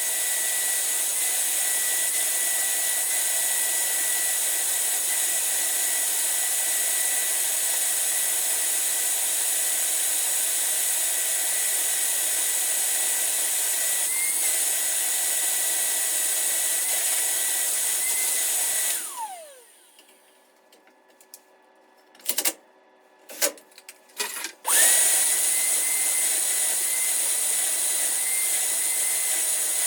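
An electric motor, from a cleaning tool used on a dryer vent, running steadily with a high whine. It is switched off about two-thirds of the way in and winds down with a falling whine. A few short knocks follow in the quiet, then it starts up again abruptly.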